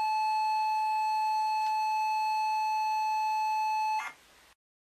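Steady electronic telephone line tone, one unbroken pitch held for about four seconds and cutting off suddenly.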